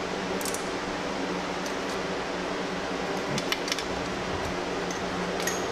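Steady machine hum with several light metallic clinks of a wrench and socket working the exhaust bolts, three of them close together about three and a half seconds in.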